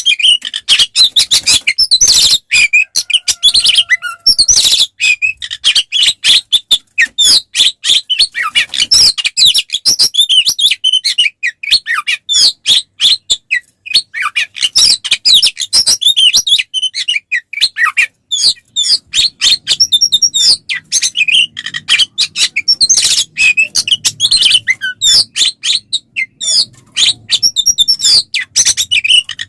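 Oriental magpie-robin (kacer) singing hard and without let-up: a fast, dense stream of loud, varied whistles and chirps with hardly a pause, the fighting-style song used to provoke other males.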